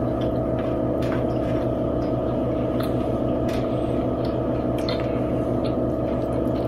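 A steady low hum with several fixed tones, with a few faint clicks from forks and plates as the food is eaten.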